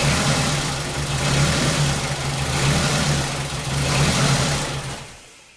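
2001 Ford Focus's Zetec four-cylinder engine idling with a misfire, its sound swelling and sagging, then switched off about five seconds in and dying away.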